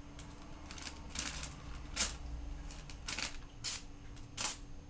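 Knife blade slicing glossy catalog paper: about five short, hissy cuts, the sharpest about two seconds in.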